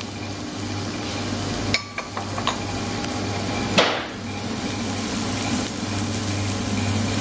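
Light clinks of a metal spoon and ceramic plates, with one sharp knock of crockery about four seconds in, the loudest sound, over a steady low machine hum.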